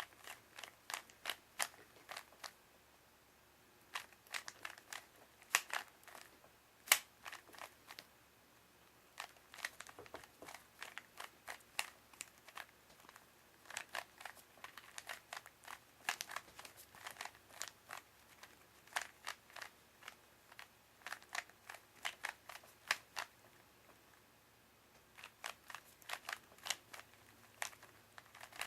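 Plastic Rubik's Cube being turned quickly by hand: rapid clicking and clacking of the layers rotating, in bursts with a few brief pauses.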